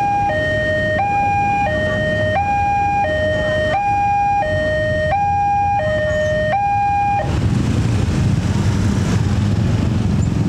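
Railway level-crossing warning alarm sounding a two-tone electronic hi-lo signal, each tone lasting about two-thirds of a second, which cuts off about seven seconds in. A louder low rumble follows.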